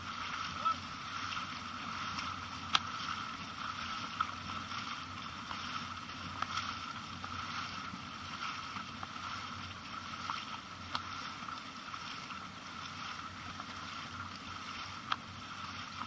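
Steady rush and splash of water from a dragon boat crew paddling hard, with a few scattered sharp knocks.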